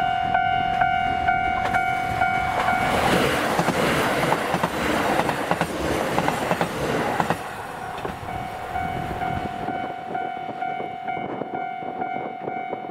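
KiHa 183 series diesel express railcars pass close by about three seconds in, a rush of engine and wheel noise with rapid clicks from the rail joints that lasts about four seconds, then fades as the train runs away. A steady, regularly pulsing ringing tone is heard before the train arrives and returns after it has passed.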